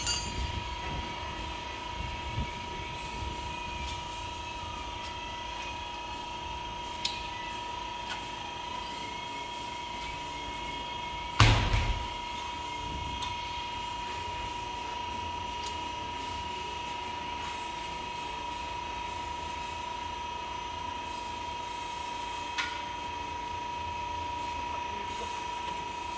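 Tire-shop background: a steady high-pitched hum over a low rumble, with a few light clicks and one heavy thump about eleven seconds in.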